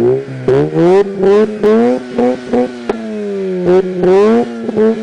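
Mazda RX-8's twin-rotor Wankel rotary engine being revved, its pitch jumping up in quick blips and falling back, over and over.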